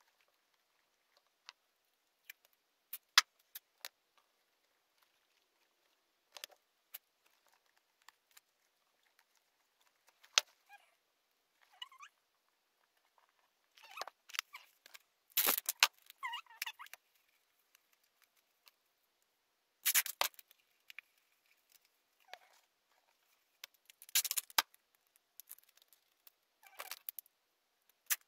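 Paper crinkling and rustling, with scattered light clicks and taps, as hands smooth and press white paper wrapped over a cardboard box. It is sparse at first, with denser, louder crinkles in the second half.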